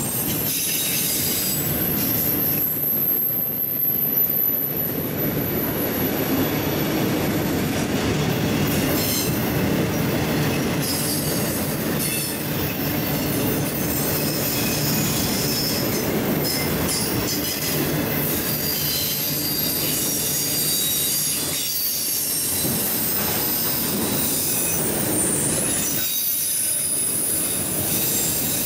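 A passing train's cars rolling by on the rails: a steady, continuous rumble with high-pitched wheel squeal, most sustained over the first several seconds.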